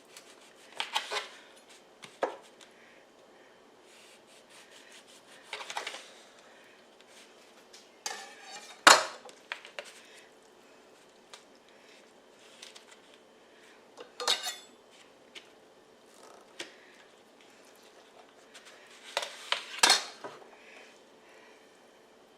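Knife clinking and scraping against a plate while an orange is sliced thin, in short scattered bursts with the loudest clink about nine seconds in.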